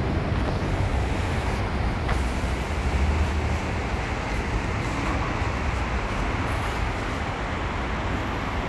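Steady low rumble of road traffic, with no separate events standing out.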